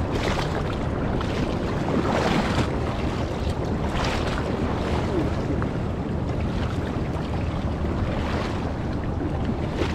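Wind buffeting the microphone over water washing along a kayak's hull as it is paddled, with paddle-blade splashes about every two seconds.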